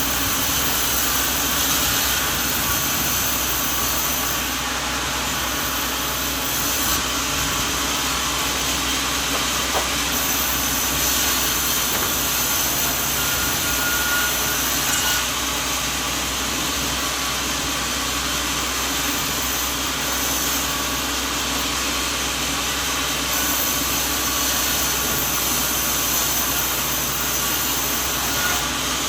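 Sawmill machinery running steadily: a constant engine hum under an even, noisy hiss, with no breaks or changes.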